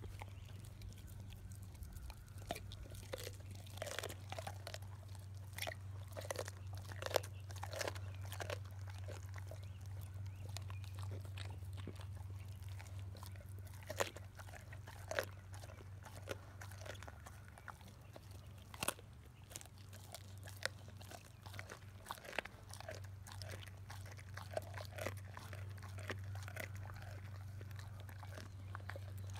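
Boxer-mix dogs chewing raw salmon heads: irregular wet crunches and sharp cracks as bone and cartilage break between their teeth, over a steady low hum.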